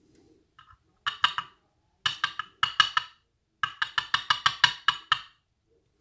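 Groups of sharp, ringing metallic taps: a few, then a cluster, then a quick run of about ten, as the brass plug of a gutted American 1100 padlock is worked to free its last pin.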